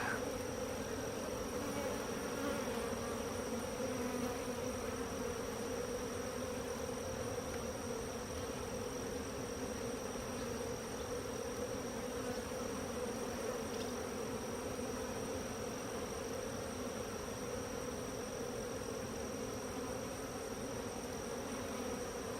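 Honeybees buzzing steadily in a dense, unbroken hum around an opened hive as its frames are being worked, the colony stirred up by the disturbance.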